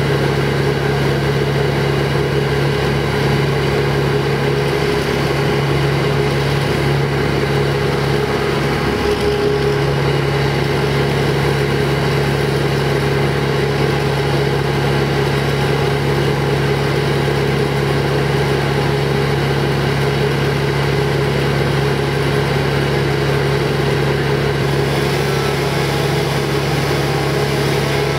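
Wood chipper's engine running steadily at one constant speed, a low hum with steady overtones.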